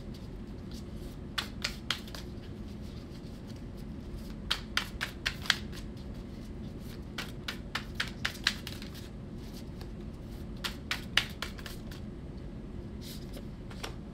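Tarot cards being flipped through and sorted by hand, sharp card clicks and slaps coming in short clusters every few seconds over a steady low hum.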